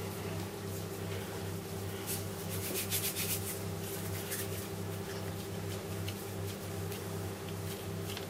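Steady low hum, like a kitchen appliance or fan, with soft rubbing and handling noises about two to three and a half seconds in as the dough seal is worked around the pot.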